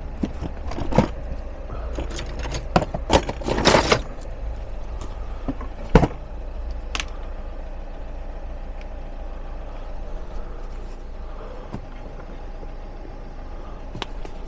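Metal clinks and rattles of tools and parts being handled at the wheel hub: a cluster of them in the first four seconds and one sharp knock about six seconds in, then fainter scattered ticks over a steady low hum.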